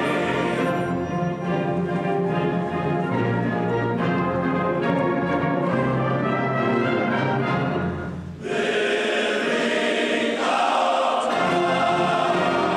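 Large men's chorus singing with a concert wind band accompanying. About eight seconds in the music breaks off briefly, then the voices and band come back in fuller and brighter.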